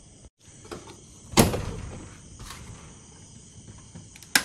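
A room door being unlocked and opened: a loud sudden rattle about a second and a half in, a few lighter knocks, and a sharp click near the end.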